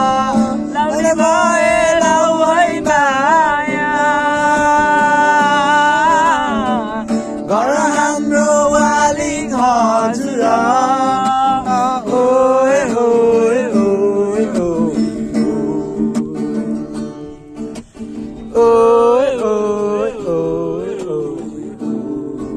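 A Nepali song: a singer holds long notes with a wavering pitch over plucked-string accompaniment.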